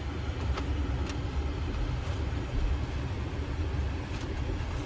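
Steady low rumble of road and tyre noise inside the cabin of a BMW i4 electric car on the move, with no engine note. There are a couple of faint clicks about half a second to a second in.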